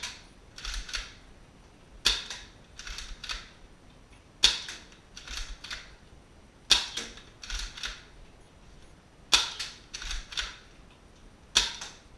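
Nerf Cycloneshock foam-dart blaster firing one dart after another, a sharp pop about every two and a half seconds, five shots in all. Two or three quieter clacks follow each shot.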